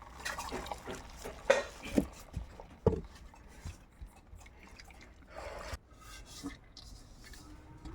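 Boiled basmati rice draining: starch water dripping and trickling off it, with a few sharp knocks in the first three seconds.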